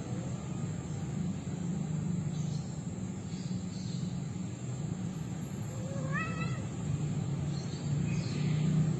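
A cat gives one short, wavering yowl about six seconds in, while a pair of stray cats are mating. A steady low rumble of background noise runs underneath.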